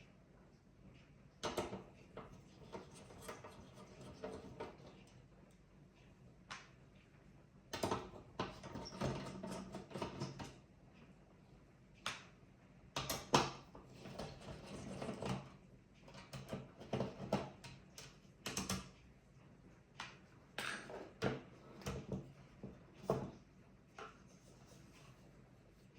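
Clicks, knocks and short scrapes of hands handling a Terramaster F2-423 NAS and its parts during a RAM and SSD upgrade, coming in irregular clusters with pauses between.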